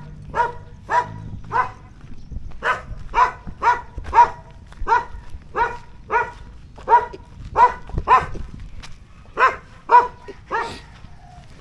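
A dog barking over and over, about twenty short barks at roughly two a second, with a couple of brief pauses.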